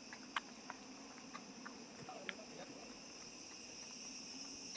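Faint, steady high-pitched drone of insects in tropical hillside forest, with a few soft ticks and a brief faint voice about two seconds in.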